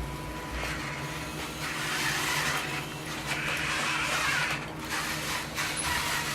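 Small electric motors of a radio-controlled construction machine running, rising and falling in uneven stretches.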